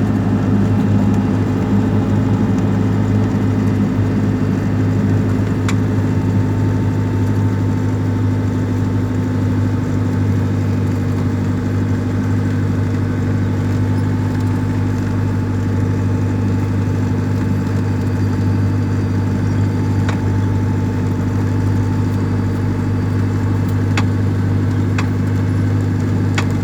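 Cessna 172R's four-cylinder Lycoming engine and propeller running steadily at low power, heard inside the cockpit. The engine keeps an even drone throughout, with a few faint clicks.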